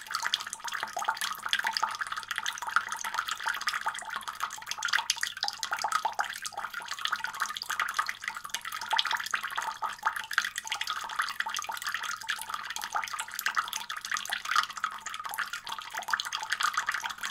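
A steady trickle of running water with fine dripping and splashing, with no music or voice over it.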